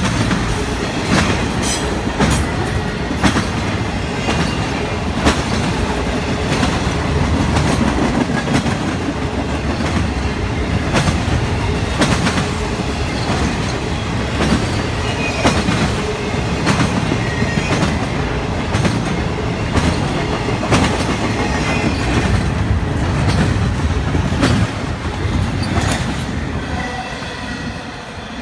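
Intermodal freight cars rolling past close by: a steady rumble of steel wheels on rail, broken by irregular clicks and clanks as the trucks cross rail joints, with a faint wheel squeal at times. It fades in the last couple of seconds as the rear of the train pulls away.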